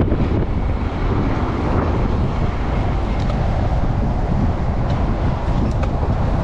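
Strong wind buffeting the microphone of a chest-mounted camera on a moving bicycle: a loud, steady, low rumble with no break.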